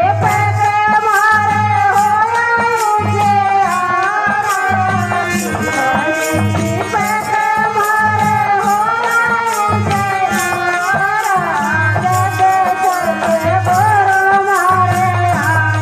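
Folk devotional bhajan music: a sustained, gliding melody over a repeating low drum beat and a steady shaken-rattle rhythm of about four strokes a second.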